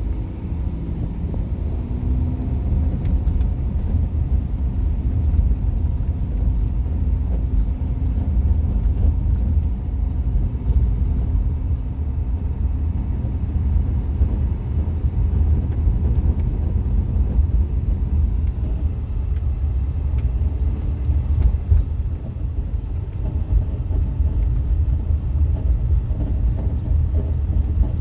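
Cabin noise of a 2010 VW Tiguan on the move, a steady low rumble, with faint intermittent clicks of a rattle that sounds like a plastic box, coming from high up behind the dashboard. The rattle comes from a defective front strut mount.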